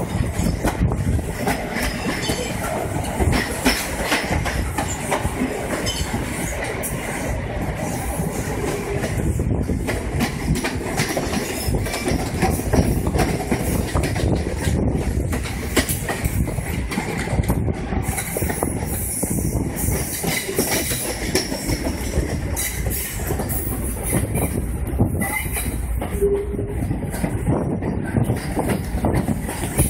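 Moving Sri Lanka Railways passenger train heard from an open coach doorway: steady rumble of the running train with rapid clicking of wheels over the track.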